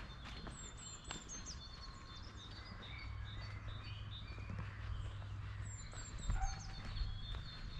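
Garden birds singing, one bird repeating a short, high, falling phrase near the start and again about five seconds later, over a steady low rumble.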